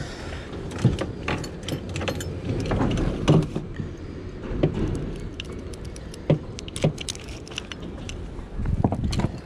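Irregular clicks, knocks and light clinks of a just-caught fish and fishing tackle being handled in the hull of a small wooden boat.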